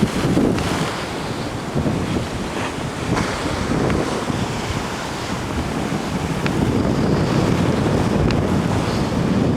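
Large ocean waves breaking and surging, a steady heavy rushing of surf, with wind buffeting the microphone.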